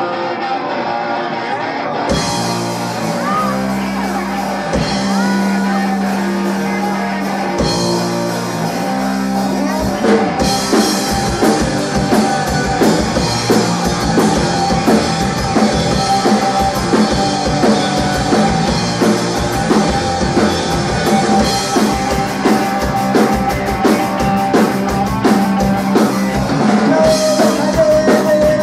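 Live rock band playing a song's instrumental intro: a held electric-guitar note from the start, low bass notes joining about two seconds in, and the full band with drums coming in about ten seconds in.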